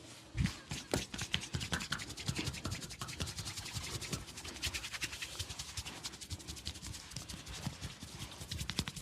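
Hands massaging oiled skin close to the microphone: a brisk, continuous run of rubbing strokes mixed with quick small taps and clicks.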